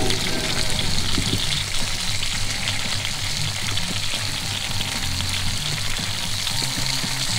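Pork ribs sizzling on a portable grill as barbecue sauce is brushed onto them: a steady, fine crackling sizzle.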